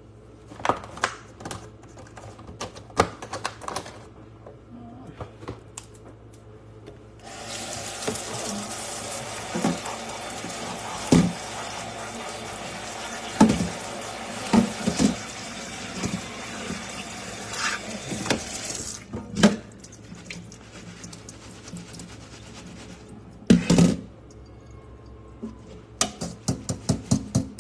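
Kitchen faucet running into a stainless steel sink for about twelve seconds in the middle while salad greens are rinsed, with knocks and clatter of the bowl and metal strainer being handled before, during and after the water.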